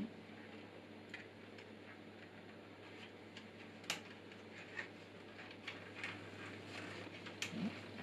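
Faint, scattered small clicks and ticks of a plastic fan-cable connector being handled and pushed into the in port of an NZXT RGB fan controller, the sharpest click about four seconds in.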